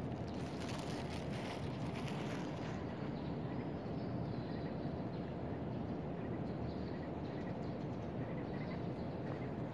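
Steady city background hum of distant traffic, with a burst of fine crackly rustling in the first two or three seconds and a few faint high chirps later on.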